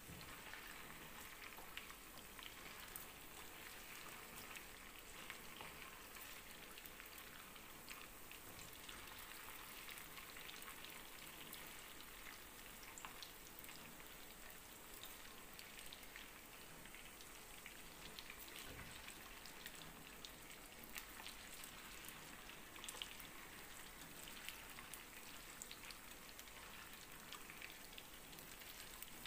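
Beef meatballs frying in oil in a pan: a faint, steady sizzle with a continual crackle of small pops.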